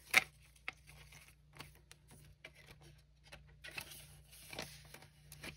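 Soft rustling and crinkling of polymer banknotes and a plastic binder envelope being handled, with one sharper rustle just after the start and faint scattered rustles and small clicks after it.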